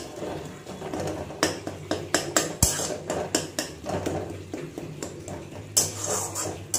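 Steel spatula scraping and knocking against a metal kadai in quick, irregular strokes while soft cooked tomatoes in a thick masala are mashed and stirred.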